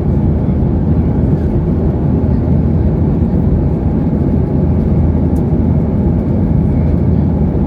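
Boeing 737-800 airliner heard from inside the cabin at takeoff, its CFM56-7B turbofan engines and the airflow making a loud, steady, low noise.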